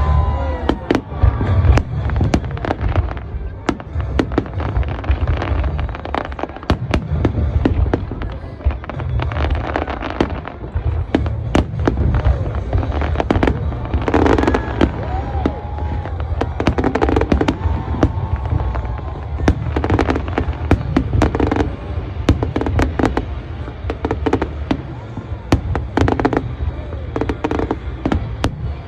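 Aerial fireworks display: a dense, continuous run of booming shell bursts and sharp crackles over a low rumble, with music playing alongside.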